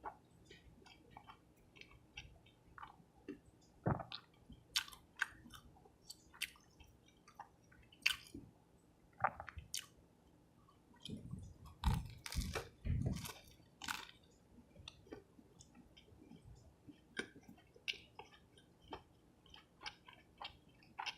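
Close-miked chewing while eating a cheese fish sub and fries: irregular wet mouth clicks and smacks, with a cluster of louder, deeper chewing sounds a little past halfway.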